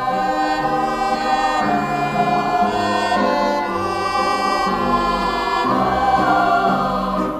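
Background music: a choir singing held chords that change every half second to a second.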